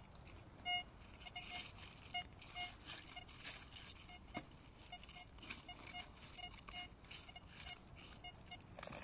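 Metal detector giving many short, irregular beeps of one steady mid pitch as its search coil is swept over the dug hole, signalling a metal target in the soil. Faint rustling in between.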